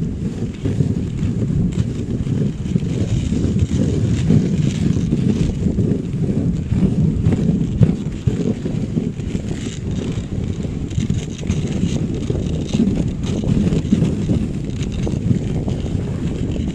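Dog sled running over packed snow behind a pair of Siberian huskies: a steady low rumble of the runners on the snow, mixed with wind on the microphone.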